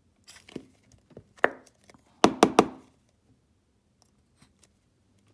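Handling noises on a workbench: a few light taps, a knock about a second and a half in, then three sharp clicks in quick succession just past two seconds in.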